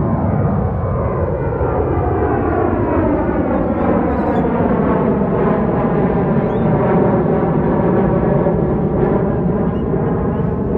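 Boeing 737-700 jet airliner taking off, its CFM56 turbofans giving a loud, steady jet roar with slowly sweeping, phasing tones as it passes.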